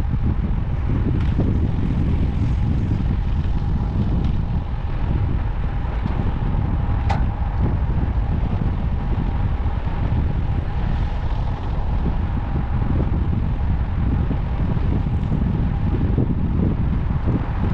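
Wind buffeting the microphone of a bike-mounted action camera while riding a road bike, a heavy steady rumble. A faint steady tone sits under it for most of the stretch, and there is a single sharp click about seven seconds in.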